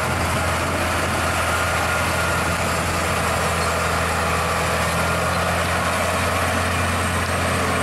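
Heavy Scania truck's diesel engine running with a steady low drone as it hauls two loaded side-tipper trailers slowly along a gravel road.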